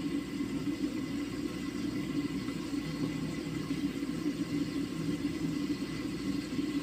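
Stove burner heating a covered pan of simmering pork adobo: a steady low rumble.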